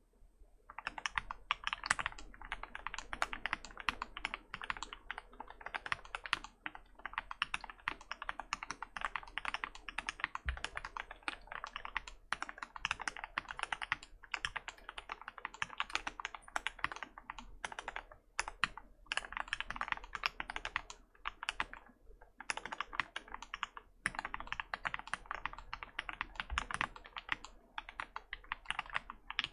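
Cornelius prototype v1 mechanical keyboard with Turquoise Tealios linear switches lubed with Krytox 205g0, typed on quickly and continuously, a dense run of keystrokes starting about a second in with a few brief pauses.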